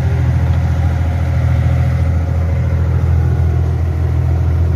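Fishing boat's engine running steadily, a constant low drone heard on board.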